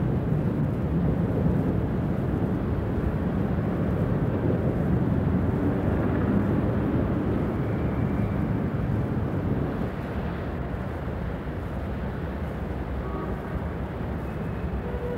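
Steady city street traffic noise: a continuous rumble of passing cars and taxis, easing slightly in the second half.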